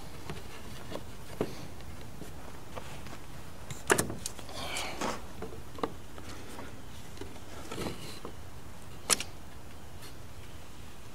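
A few scattered knocks and clicks, with a brief scraping rustle about five seconds in: wood pieces and hand tools being handled during woodworking.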